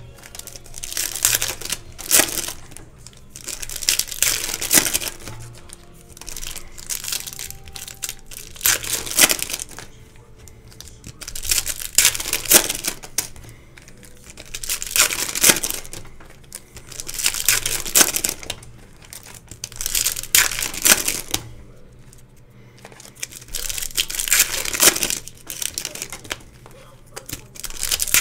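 Plastic wrapping on trading-card boxes and packs crinkling and tearing as it is opened by hand, in about ten bursts two to three seconds apart.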